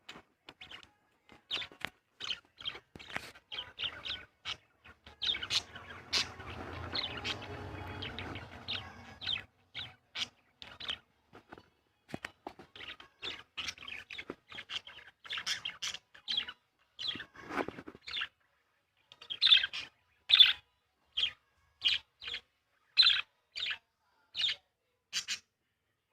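Birds chirping: a long run of short, sharp chirps, getting louder in the last several seconds, with a few seconds of steady rustling noise underneath about five seconds in.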